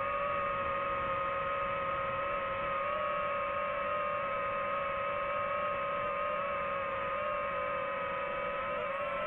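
Quadcopter drone's propellers whining steadily, several close pitches together, wavering a little near the end.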